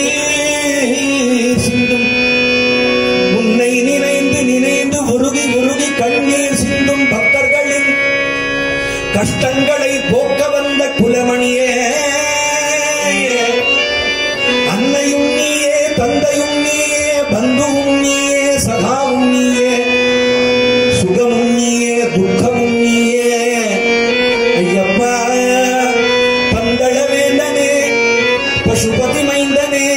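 Live South Indian devotional bhajan music. A harmonium holds steady sustained tones over regular strokes of a hand drum with a pitch-bending bass.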